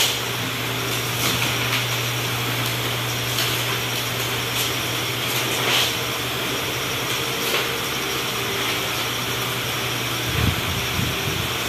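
Steady mechanical drone and hiss with a low hum that breaks up about ten seconds in, and a few faint rustles and taps of large manila paper sheets being handled and stuck onto a board.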